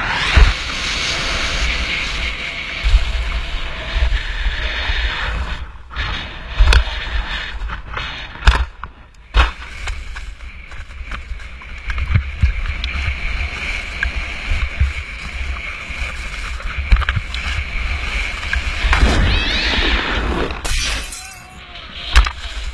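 Skis scraping and hissing at speed over thin, patchy snow and bare ground, with many sharp knocks as they hit bumps, and wind rushing past.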